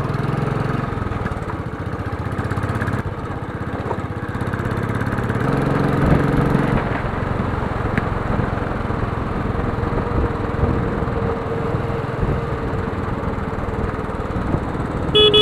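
Single-cylinder Royal Enfield motorcycle engine running steadily under way, heard close up from the handlebars along with wind and road noise. A short beep comes right at the end.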